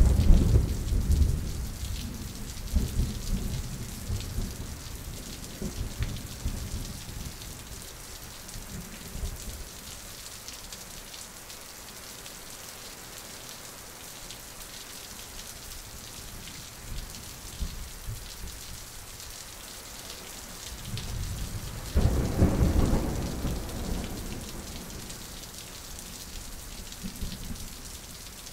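Thunderstorm: steady rain hiss with rolling thunder, a rumble dying away over the first several seconds and a fresh peal breaking suddenly about 22 seconds in, then rolling off.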